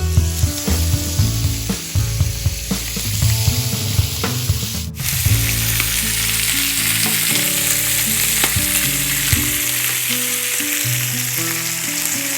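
Meat sizzling and frying on a Korean barbecue grill, a steady dense sizzle that cuts out for an instant about five seconds in and then carries on.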